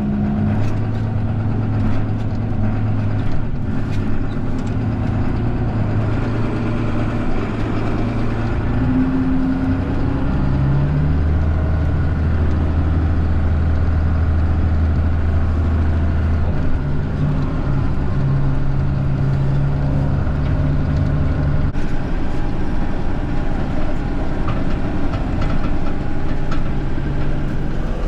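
Diesel engine of a farm tractor running under way, heard from inside the cab. Its engine speed shifts up and down a few times.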